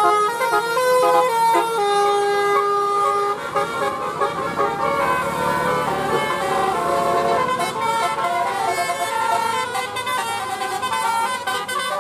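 Bus 'telolet' horn, a multi-trumpet musical air horn, playing a tune: several steady horn notes sound together and change pitch every fraction of a second. Engine noise runs beneath, rising around the middle.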